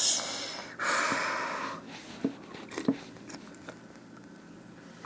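A person sipping a drink from a glass with a short noisy slurp, then a breathy rush of air lasting about a second, followed by a few faint mouth clicks.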